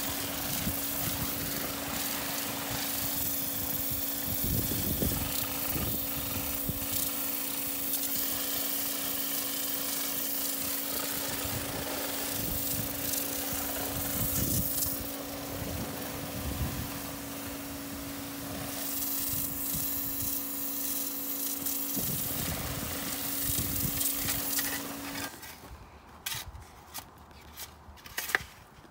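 Pressure washer running with a steady hum while its jet hisses against a wooden fence, washing dirt off the wood. Near the end it stops, and a few short scrapes of a shovel digging into soil follow.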